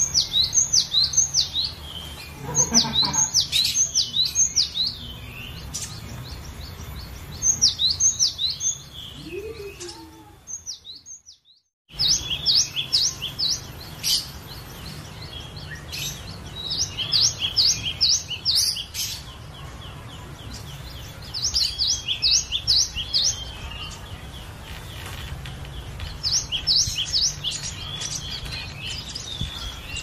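Cinereous tit (glatik batu) singing: repeated phrases of quick, high, downward-slurred whistled notes, four to six to a phrase, with short pauses between phrases, over a low steady hum. The sound cuts out briefly about eleven seconds in.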